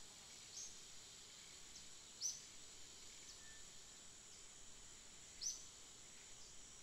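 Faint outdoor ambience: a steady high insect drone with short high bird chirps repeating every second or so, two of them louder, about three seconds apart.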